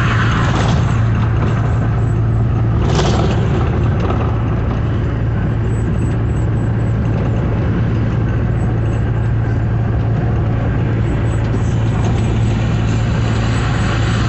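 Steady drone of a truck's engine and road noise heard inside the cab while cruising on the highway, with a brief rush of noise about three seconds in.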